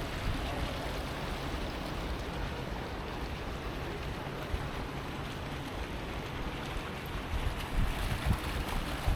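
Steady rain with wind buffeting the microphone, making a low rumble that gusts harder near the end.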